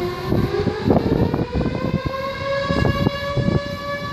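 An alarm siren sounding one long continuous wail, its pitch climbing during the first second and then holding steady, raised as the ship burns. Gusts of low rumbling noise come and go over it.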